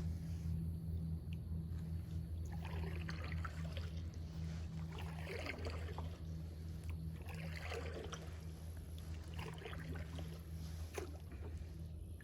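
Kayak paddle strokes in calm water, splashing and dripping about every one to two seconds, over a steady low hum.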